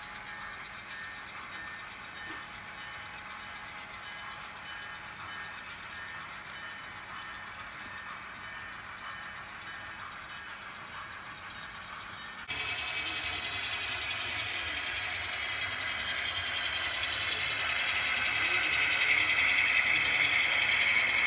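HO-scale model freight train rolling on layout track, its wheels clicking regularly over the rail joints. About halfway through the sound switches abruptly to a louder running sound with a steady whine from the model diesel locomotive, which grows louder as it nears and crosses a bridge.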